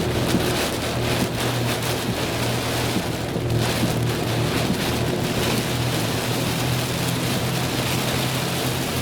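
Heavy rain pelting a moving car's roof and windshield, over a steady low drone from the engine and tyres.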